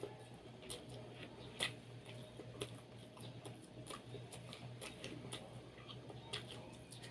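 A person eating and chewing, faint irregular clicks and smacks from the mouth, over a low steady hum.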